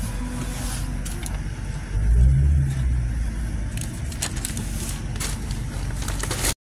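Steady low rumble and hiss of an airliner cabin's background noise, with a louder low hum swelling briefly about two seconds in and a few sharp clicks near the end.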